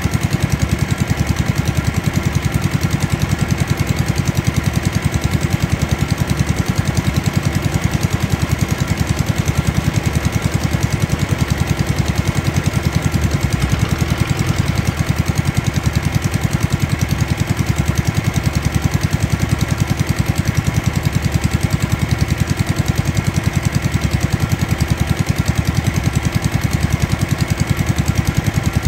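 Kubota rice combine harvester's diesel engine running steadily at close range, with a fast, even beat.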